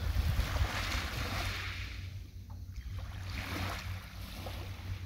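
Wind rumbling steadily on the microphone, with the hiss of small waves washing onto the shoreline swelling and fading a few times.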